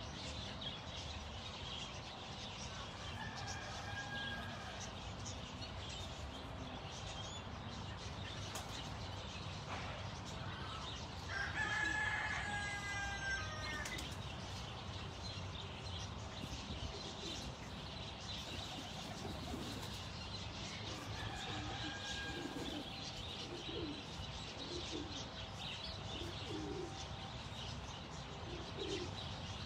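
Poultry-yard birds: a rooster crows once near the middle, a call of about two seconds and the loudest sound, with fainter crowing-type calls a few seconds in and again past the twenty-second mark. Short low clucks come toward the end.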